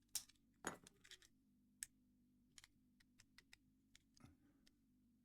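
Number wheels of a Squire CP50 combination padlock being turned by hand: a string of small, sharp clicks at uneven intervals as the wheels step through their numbers.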